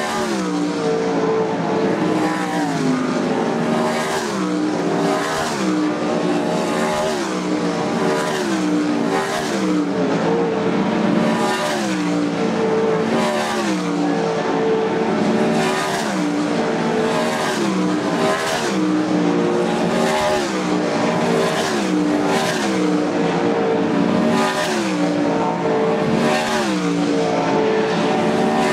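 Several dirt-track race cars running hot laps on a clay oval, their engines at full racing revs. The engine note keeps dropping in pitch, about once a second, as car after car sweeps by and lifts for the turn, over a steady loud blend of engines around the track.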